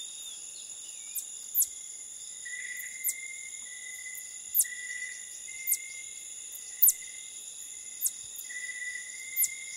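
Philippine tarsier calling: short, very high-pitched whistled chirps that fall in pitch, about one a second, over a steady drone of insects.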